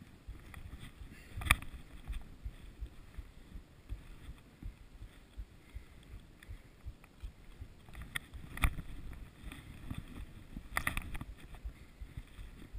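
Skis swishing through deep powder snow, heard from a camera worn by the skier, with uneven low thuds and a few sharp knocks, the loudest about one and a half seconds in and two more near the end.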